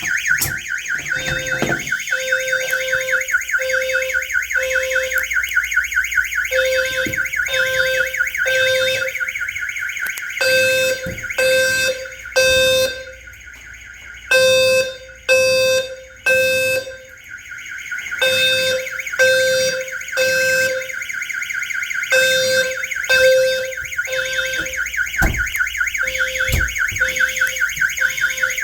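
Fire alarm notification appliances sounding in temporal code-3. A low-frequency sounder's deep tone near 500 Hz beeps in groups of three with a pause between groups, over the continuous rasping buzz of a horn.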